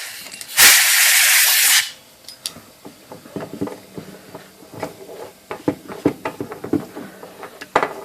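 A loud blast of compressed air from an air gun, hissing for about a second, blown into an IBM Selectric typewriter motor to flush cleaner and old oil out of it. After it come scattered light clicks and knocks as the motor and tools are handled.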